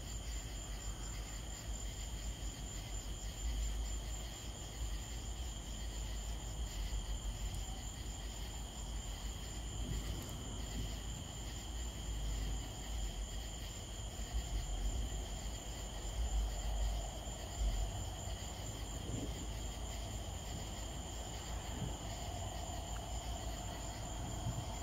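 Steady high chirring chorus of night insects, with a low rumbling noise underneath.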